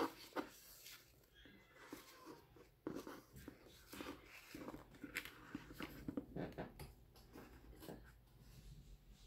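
Foam packing peanuts and cardboard handled in a mailer box: irregular rustling with many light clicks and knocks as the peanuts are pushed aside and the boxed knife is lifted out.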